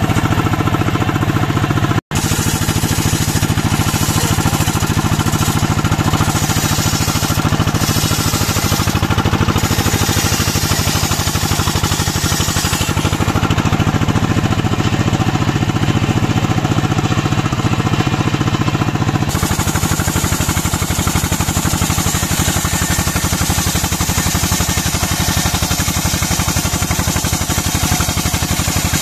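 Engine of a portable circular sawmill running steadily with an even, rapid beat, cutting out for an instant about two seconds in.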